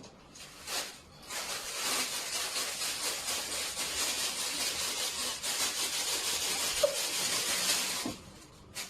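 A steady, rough hissing noise starting about a second in and stopping shortly before the end, after a brief whoosh.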